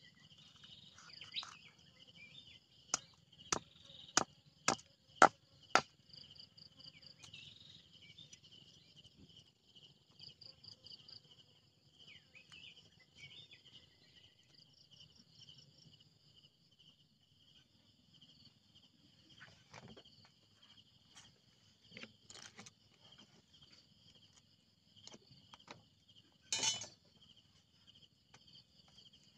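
A heavy cleaver chopping on a chopping block: a quick run of six hard blows, about two a second, a few seconds in, then a few scattered knocks later on. Insects chirr steadily throughout.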